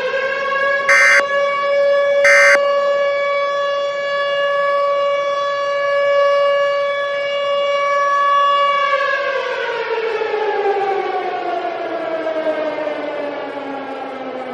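Civil defense siren sounding a tsunami warning: a steady wail that winds down in a long falling pitch from about nine seconds in. Two short beeps sound over it in the first few seconds.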